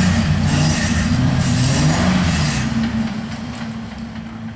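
Off-road vehicle's engine revving unevenly under load on a rocky climb, with bursts of rushing noise over it; the engine eases off about three seconds in and settles to a lower, quieter run.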